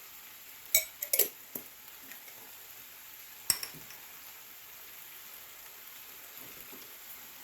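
Sharp clinks and taps of kitchenware while spices are added to a stew pot: a quick cluster of three or four about a second in, then a single one near the middle, over a faint steady hiss.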